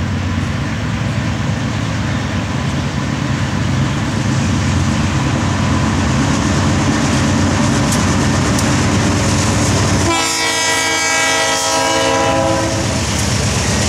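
Norfolk Southern diesel locomotives rumble by at track speed, the engine noise building as they pass. About ten seconds in, the lead locomotive's multi-chime air horn sounds one long blast of about three seconds.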